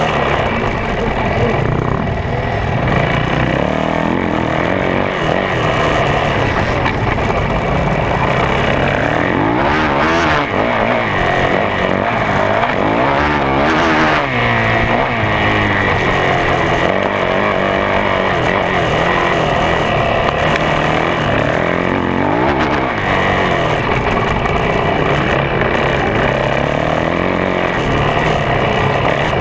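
A 2011 Yamaha YZ450F's four-stroke single-cylinder engine racing on a motocross track, heard on board; the revs rise and fall over and over as the rider accelerates, shifts and rolls off.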